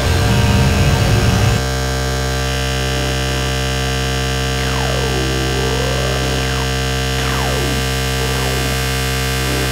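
Electronic noise music: a dense synthesizer drone of many held tones, with a rough low rumble in the first second and a half. From about five seconds in, several falling whistle-like glides sweep down over it. The drone cuts off suddenly at the end.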